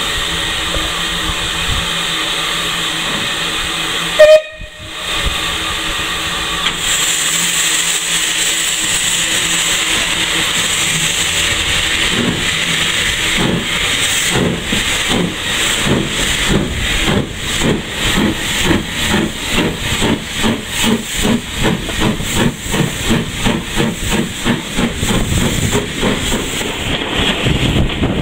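Steam locomotive, the J72 0-6-0 tank engine 69023, hissing steam, with a brief loud burst about four seconds in, then getting under way: its exhaust beats start about a third of the way in and quicken steadily as it pulls away.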